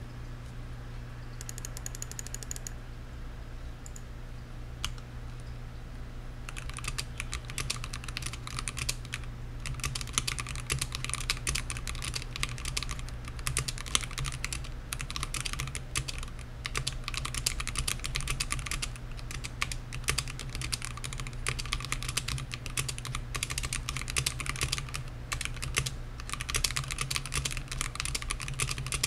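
Typing on a Womier K87 tenkeyless mechanical keyboard with XDA-profile keycaps: a few scattered keystrokes at first, then fast, continuous typing from about six seconds in. A steady low hum lies underneath.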